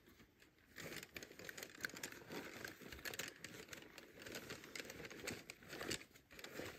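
Irregular crinkling and rustling of camping gear being handled.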